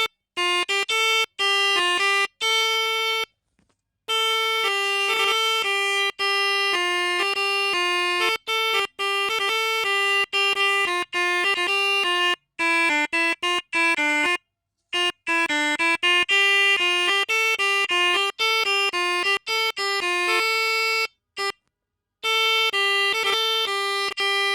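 Pianika (melodica) playing telolet bus-horn tunes: quick short notes alternating between a few pitches, in phrases broken by brief silences.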